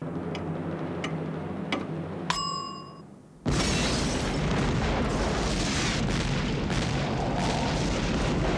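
Explosion sound effect. A low hum with a few sharp clicks and a short ringing ding comes first, then about three and a half seconds in a sudden loud blast that rumbles on steadily and cuts off abruptly.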